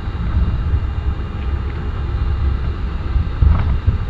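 Airbus A310 engines and rolling gear, heard inside the cabin as a steady low rumble while the airliner moves slowly on the ground with its engines still below takeoff power. A brief bump sounds about three and a half seconds in.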